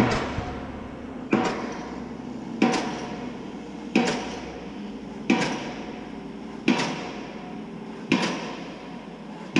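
Pile driver at bridge construction striking in a steady rhythm: one ringing blow about every second and a third, each dying away before the next.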